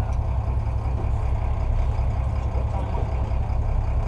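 Charter fishing boat's engine running steadily at trolling pace: a deep, evenly pulsing hum with no change in speed.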